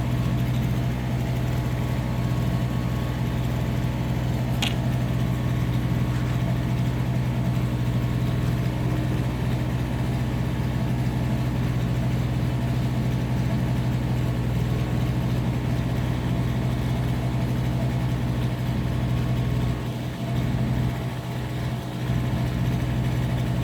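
Car engine idling with a steady hum, and a brief click about five seconds in.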